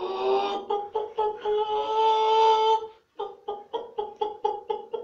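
A human voice imitating a hen: a long drawn-out call, then a run of short clucks, about four a second.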